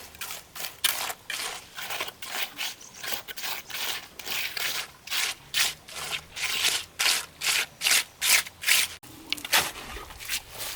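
Rhythmic scraping strokes, about three a second, louder in the second half, with a short break about nine seconds in.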